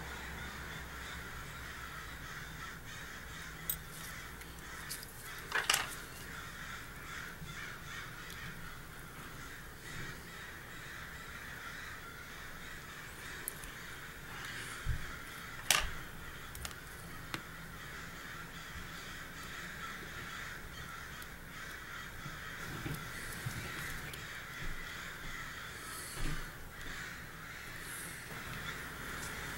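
Birds calling steadily in the background. Over them come a few sharp metallic clicks from steel watchmaker's tools on the watch movement, the loudest about six and sixteen seconds in.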